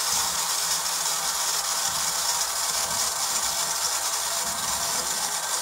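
The electric tipper-bed actuator of a Tamiya Mercedes Arocs 4151 RC tipper truck running steadily, its small motor and gearbox driving the bed. It is a bit noisy, which the builder puts down to fresh grease that has not yet worn in.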